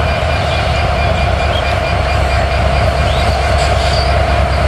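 Bangladesh Railway EMD diesel-electric locomotive running steadily: a deep, even rumble with a steady mid-pitched drone above it.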